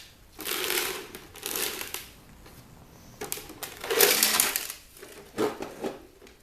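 Rough scraping and rustling handling noise in about four bursts, as hard plastic and circuit-board parts of a dismantled car DVD player are moved about.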